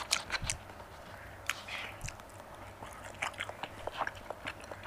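Close-up chewing of soft marinated goat meat: irregular wet mouth clicks and smacks, busiest at the start and again in the second half.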